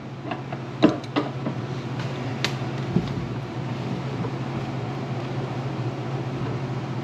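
Steady low mechanical hum with a few short clicks and knocks in the first three seconds, from fuel cell fittings being handled and fitted.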